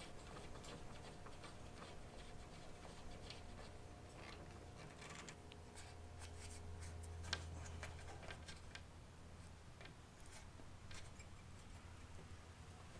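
Faint small clicks and scrapes of a screwdriver turning the set screw that adjusts a sliding glass door roller, with one sharper click about seven seconds in, over a low steady hum. The screw is being driven in but the roller does not lower.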